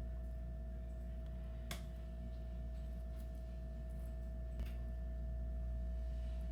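Steady low electrical-sounding hum with a faint steady tone above it, broken by two light clicks, one a couple of seconds in and one near the end.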